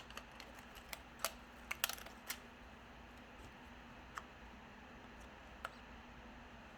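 Scattered light clicks and taps of small tools and parts being handled during a phone repair, several in the first two seconds and then only occasional ones, over faint room tone.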